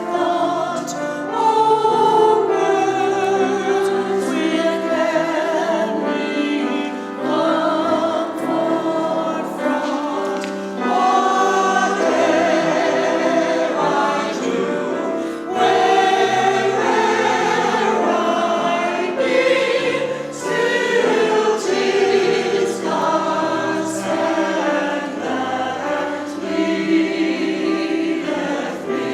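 Church choir singing a sacred piece, many voices holding and changing notes together.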